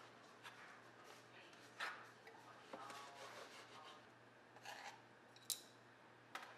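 Faint kitchen handling: a knife scraping over a cutting board and chopsticks moving pepper strips into a ceramic bowl. There are a few soft scrapes and clicks, with a sharp click about five and a half seconds in.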